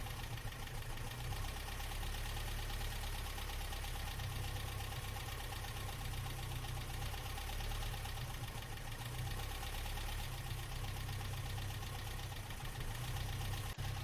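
Humber Sceptre Mk3's four-cylinder engine idling steadily on twin Zenith-Stromberg 150CDS carburettors while warming up, running a little lumpy.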